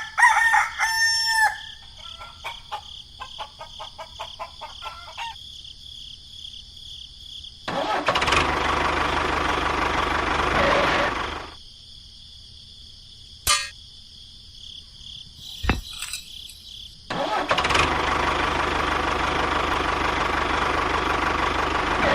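A rooster crows briefly at the start. Later come two long stretches of steady machine noise, the first about three seconds long and the second about five.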